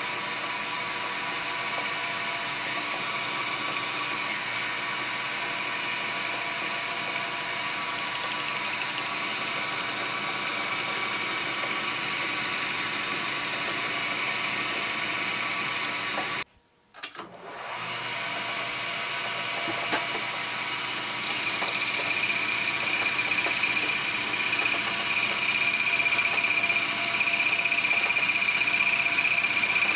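1981 Lantaine LAM-350H metal lathe running a half-inch two-flute end mill in its chuck, milling the top off a cast-iron half nut holder. Steady machine whine throughout. It breaks off sharply for under a second about halfway through, then comes back, and from about two-thirds of the way in it is louder, with a high steady whine as the cutter works the metal.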